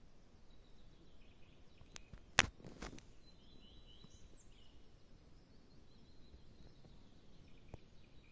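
Faint, scattered bird chirps and a short whistled note in a quiet pine forest. Two sharp clicks sound about two and a half and three seconds in, and a smaller one comes near the end.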